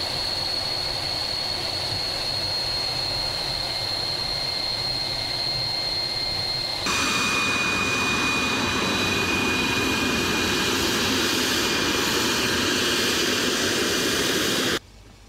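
Aero L-39 Albatros jet trainer's turbofan engine running at taxi power: a steady rushing noise with a high, steady whine. About seven seconds in the sound changes abruptly to a louder outside perspective with a lower whine, then cuts off suddenly just before the end.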